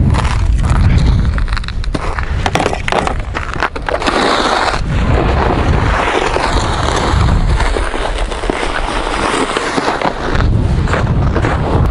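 Footsteps crunching on snow-covered lake ice, with a loaded fishing sled scraping along over the snow. Wind buffets the microphone with a low rumble.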